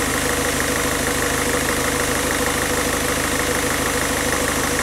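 Peugeot-Citroën 1.6 HDi four-cylinder common-rail diesel idling steadily while it runs on injector cleaner fed straight from the bottle. Its idle has settled and softened, which the mechanic takes as the injectors being cleaned.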